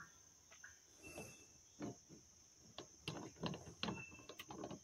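Faint, irregular clicks and light knocks of a metal strainer fitting being handled and threaded onto a brass rain-barrel spigot, bunched in the second half. A steady faint high hiss runs underneath.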